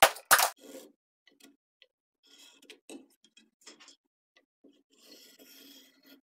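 Two quick hammer blows on the back of a hatchet head driven into a block of ash to split it, the last of a fast run of strikes. Then faint ticks and a soft scratching rub of a marker tracing along a handle laid on the wooden blank, near the end.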